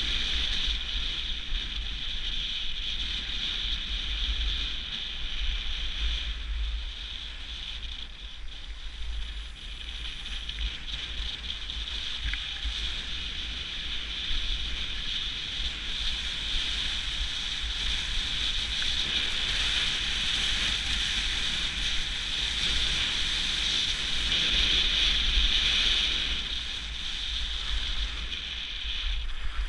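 Wind rushing over an action camera's microphone while skiing fast downhill: a steady high whistle runs throughout over a low, gusting buffet.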